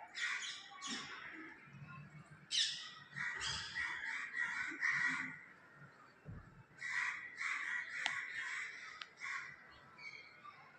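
A pet parrot calling in three runs of short, quickly repeated calls, with brief pauses between the runs.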